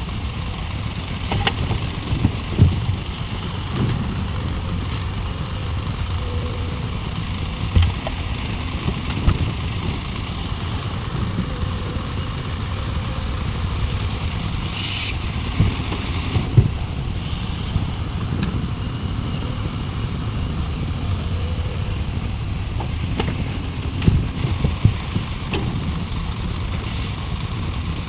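Heavy diesel mining machinery (excavator and dump trucks) running steadily, with scattered knocks and clanks and two short air hisses, one about halfway through and one near the end.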